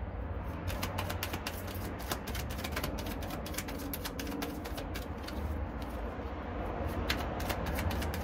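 Kipper fortune-telling cards being shuffled by hand: a quick, irregular run of card snaps and taps over a steady low rumble.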